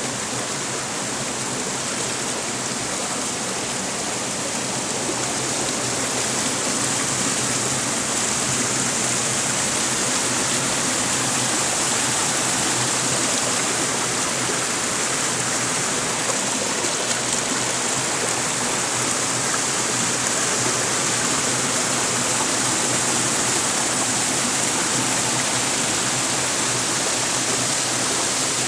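A small rocky stream rushing steadily through a narrow channel between boulders and spilling over small drops. The rush gets a little louder about six seconds in and then holds steady.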